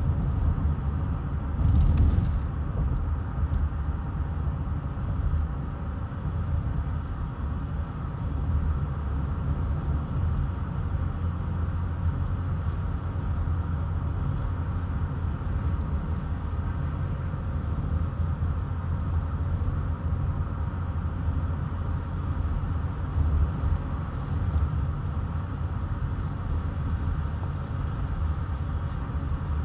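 Road and tyre noise of a car driving on an expressway, heard from inside the cabin: a steady low rumble, with a brief louder burst of noise about two seconds in.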